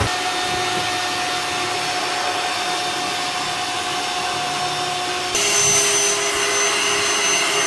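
Electric air pump running steadily as it inflates a plastic inflatable bathtub, switching on abruptly. About five seconds in it grows louder and its hum changes pitch.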